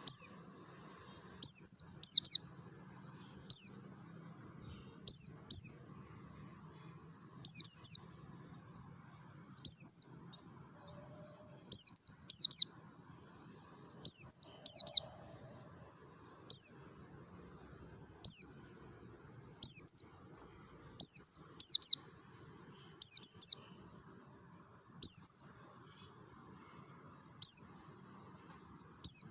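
Pleci (white-eye) of the Dakun Merapi type calling in the 'ngalas' style: short, sharp, high chirps that sweep downward, some single and some in quick pairs, repeated every second or two.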